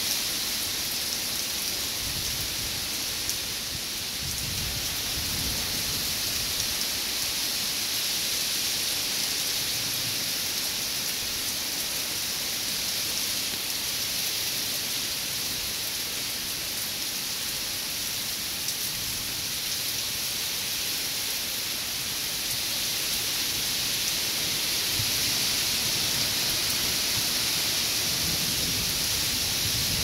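Steady downpour of rain, an even hiss, with a few faint low rumbles coming and going.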